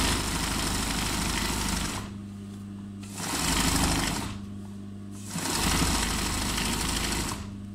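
Sewing machine doing free-motion embroidery, its needle running fast in three runs of about two and a half seconds, one second and two seconds, as the hooped fabric is guided by hand. A steady low hum continues between the runs.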